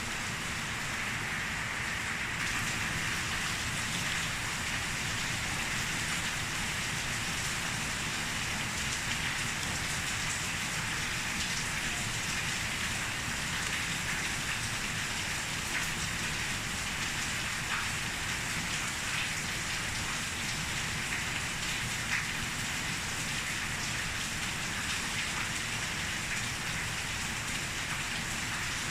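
Steady rain falling without letup, with a few faint drop ticks.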